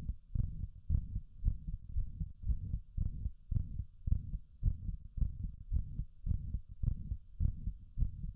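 Heart sounds beating in a regular rhythm of about two beats a second, with a heart murmur.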